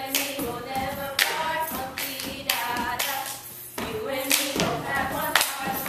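Step dancers stomping and clapping, with sharp strikes roughly once a second, while voices chant together in held, sung-sounding phrases.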